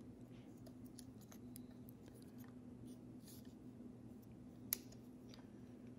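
Faint small clicks and ticks of a model locomotive's wheel truck and plastic frame being handled and fitted together, with one sharper click about three-quarters of the way through, over a faint steady low hum.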